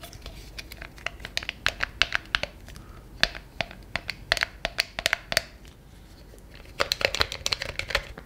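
Close-up ASMR handling of a small white model skull: fingers tapping and scratching on its hard shell, making a quick, irregular run of sharp clicks and crackles. The clicks pause for about a second just after the middle, then come back as a dense flurry near the end.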